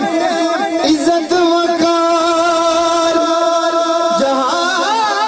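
Qawwali singing with accompaniment: a voice holds one long sustained note, wavering slightly, then breaks into rising and falling ornaments near the end.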